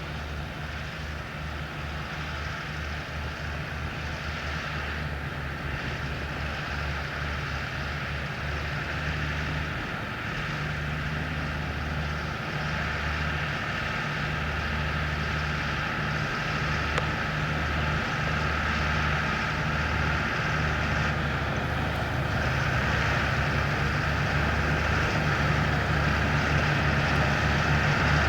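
Fendt tractor engine running steadily while working a Grimme trailed potato harvester, its low hum mixed with the rattle and noise of the harvesting machinery. It grows steadily louder throughout.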